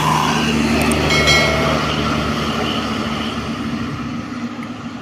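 Large diesel tour bus passing close by, its engine running with a low steady hum and the noise slowly fading as it moves away.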